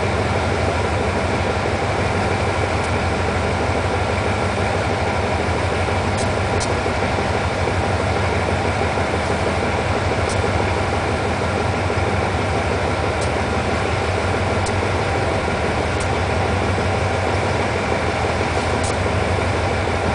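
Twin Cummins KTA-50L diesel engines of a GE CM22-7i (GEA class) locomotive idling steadily at a standstill, with a deep, even hum.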